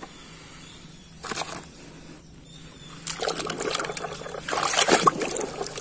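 A hand sloshing and splashing through muddy water in a tub, quiet at first with one short splash, then continuous from about three seconds in.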